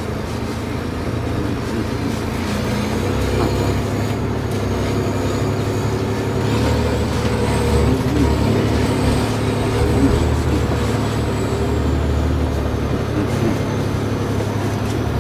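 A Sisu off-road truck's engine runs steadily under load as the truck crawls over rough ground. Its pitch wavers slightly, and a thin high whine sits above it.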